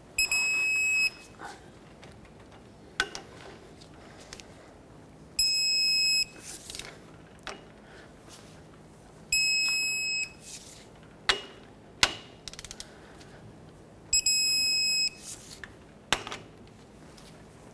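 Electronic torque wrench beeping for about a second, four times, each time a rear-hub bolt reaches its torque spec. Short ratchet clicks come between the beeps as the wrench is moved to the next bolt.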